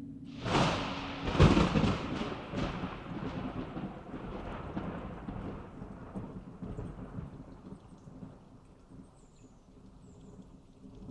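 Thunderclap: a sudden crash about half a second in and a louder crack a second later, followed by a rolling rumble that slowly fades away.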